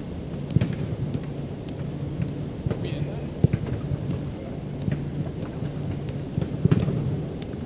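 Soccer ball being juggled and kicked: a string of irregular sharp thuds, echoing in an indoor air dome, over a steady low hum.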